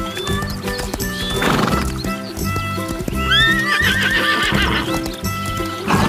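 A horse whinnying over background music: a breathy burst about a second and a half in, then a quavering whinny through the middle.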